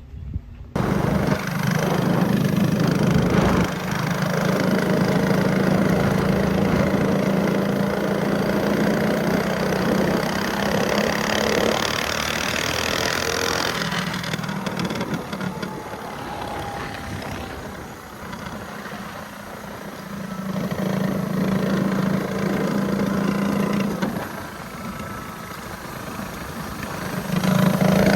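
Predator 212 single-cylinder four-stroke engine on a mini bike running, cutting in abruptly about a second in, then getting louder and quieter several times as the throttle is opened and eased off.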